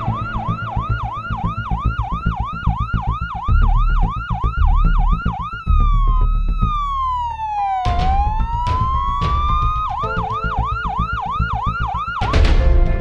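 Electronic emergency-vehicle siren on a rapid yelp, about three rises a second, switching to a slow falling-then-rising wail midway and then back to the yelp, over a low rumble. Music comes in near the end.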